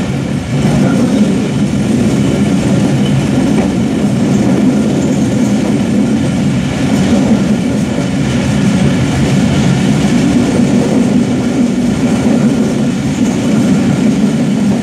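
Bangladesh Railway passenger train running along the track, heard from the rear of its last coach: a steady, loud rumble of the wheels on the rails.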